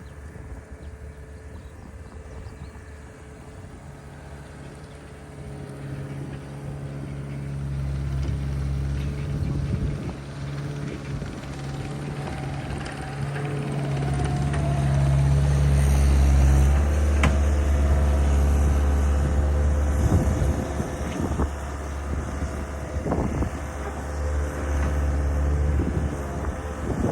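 Skid steer engine running, pulling harder with its engine note rising and louder from about halfway through, then easing off. Scattered sharp knocks and creaks come in the second half.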